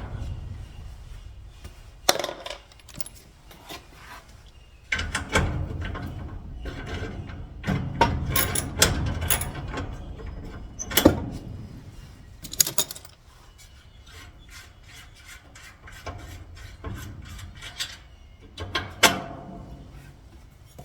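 Hand work on garage door lock hardware: irregular metal clicks, knocks and rubbing of parts and tools, with a few sharp knocks scattered through.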